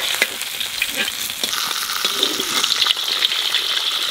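Katla fish steaks sizzling and crackling in hot oil in a wide metal kadai, with short clicks from a slotted metal spatula against the pan and the fish as the pieces are turned.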